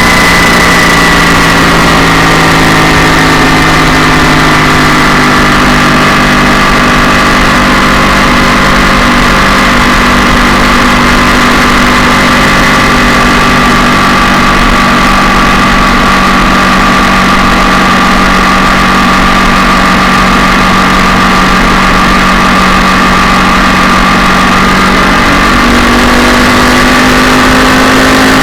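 Yamaha MT-07's parallel-twin engine with a two-canister exhaust running loud and steady, its pitch holding nearly level with only small drifts and a slight rise near the end.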